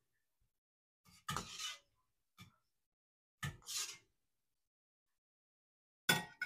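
Slotted metal spoon clinking and scraping against a stainless steel stockpot and a ceramic plate as boiled chicken is fished out of the broth and set down. Four separate clinks, two of them drawn out into short scrapes, the sharpest just before the end.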